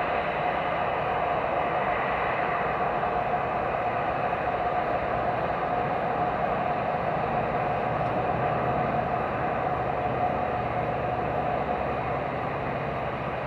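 Turbofan engines of taxiing jet airliners, an Airbus A320-family twinjet and an Airbus A380, running at idle thrust: a steady whine over a broad rumble.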